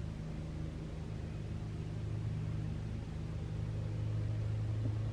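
Steady low drone of weed eaters (string trimmers) running.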